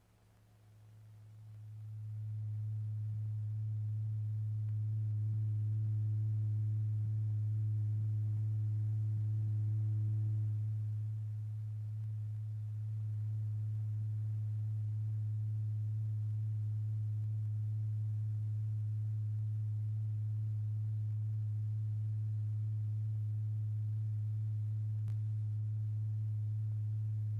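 A steady low pure tone, the electronic test tone that drives a vibrating paper diaphragm. It swells up from near silence over the first two seconds and then holds level at the same pitch, with only slight rises and falls in volume.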